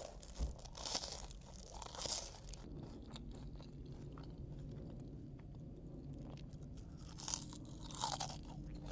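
Close-miked crunching and chewing of crispy, well-done French fries. There are sharp crunchy bites about a second and two seconds in and again near the end, with quieter chewing between.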